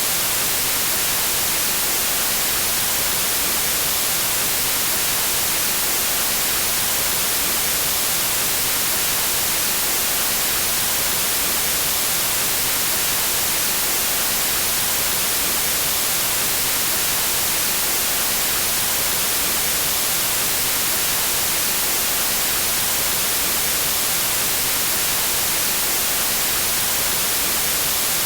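Steady, unchanging electronically generated white noise: an even hiss across all pitches, bright and strongest in the treble.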